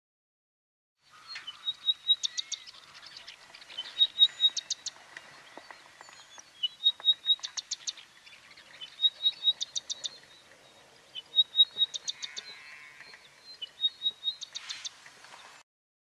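Recorded song of a small streaky brown songbird, starting about a second in. Each phrase is a few short high piping notes followed by a quick run of sharp clicking notes, and the phrase repeats six times at intervals of about two seconds.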